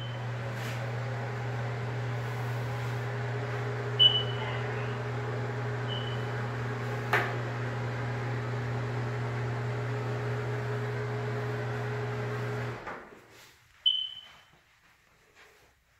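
Bathroom exhaust fan running with a steady hum, then switched off about 13 seconds in and winding down. Short high squeaks about 4 and 14 seconds in, and a click near the middle.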